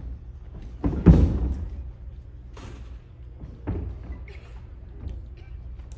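Aikido breakfalls: bodies hitting the mat with dull thuds, the loudest, a quick double impact, about a second in and a lighter one near four seconds, each ringing on briefly in the hall.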